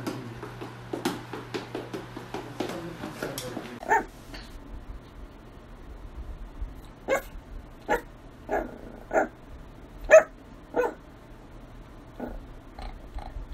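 A small dog in boots walks on a hardwood floor, its steps clicking and tapping over a steady hum. Then a small puppy gives a run of short, high barks, about one a second, the loudest about ten seconds in, with a few fainter ones near the end.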